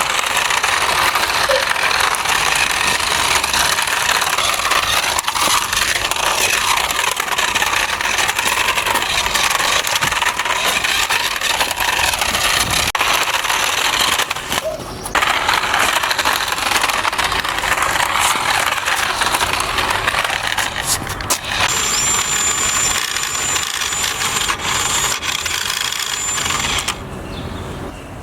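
Toy remote-control drift car being driven: its small electric motor and gears whine, rising and falling in pitch, over a steady scrubbing of wheels on the surface. The noise stops briefly about halfway through.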